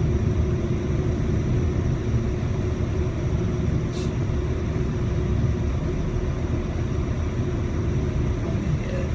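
Car cabin noise with the windows up and the air conditioning running: a steady low engine and road rumble with an even hum as the car rolls up to a stoplight. One sharp click about four seconds in.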